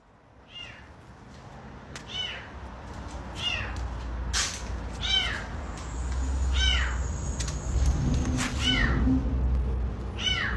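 A kitten meowing repeatedly, short high-pitched calls that fall in pitch, about one every second and a half. The kitten is calling while stuck up high, unable to get down.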